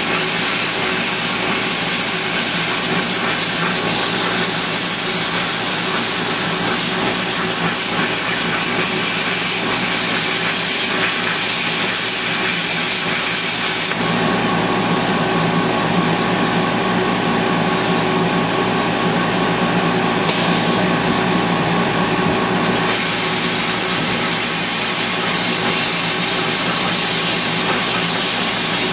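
Cutting torch hissing steadily as it cuts through a steel shipping skid. Its sound shifts about halfway through and again a few seconds later.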